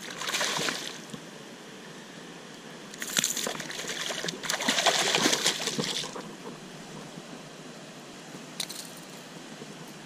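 A hooked smallmouth bass thrashing and splashing at the water's surface as it is landed by hand. The splashing comes in bursts: one about a second in, a longer, louder spell from about three to six seconds, and a short splash near the end.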